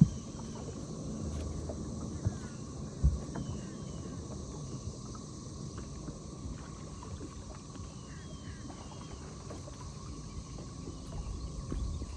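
Low, steady rumble of a small fishing boat on the water, with a faint steady whine, and a few sharp knocks against the boat in the first three seconds.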